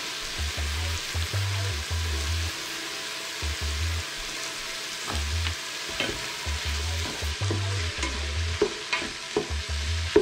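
Food sizzling steadily as it fries in a pan, with a few sharp knocks in the second half.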